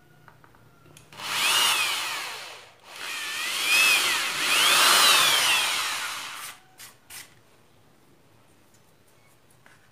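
Corded electric hand drill drilling small holes, run in two bursts of about a second and a half and three seconds, its motor pitch rising and falling as the trigger is squeezed and eased. Two short clicks follow.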